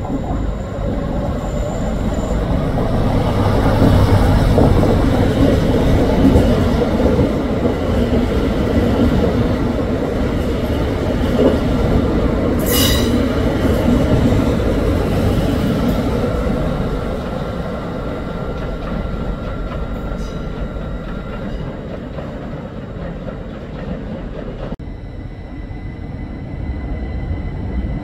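A passenger train running through a station, a steady rumble that builds to its loudest a few seconds in and then eases off. A thin steady whine runs over the middle, and a short sharp squeal comes about halfway through.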